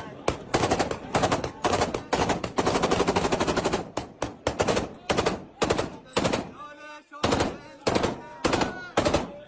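Heavy automatic gunfire: a dense run of rapid shots for about the first four seconds, then short bursts about twice a second, with a brief break about seven seconds in.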